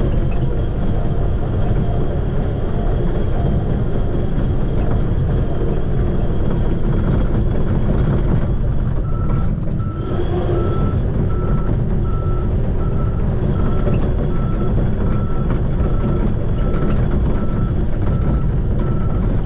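Shantui bulldozer's diesel engine running with a steady low rumble as it works dirt. About halfway through, its reversing alarm starts beeping in an even rhythm, about one and a half beeps a second, as the dozer backs up.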